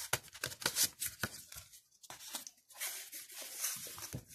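Paper album inserts and glossy photo prints being handled and slid over one another: quick crisp rustles and crinkles, busiest in the first couple of seconds.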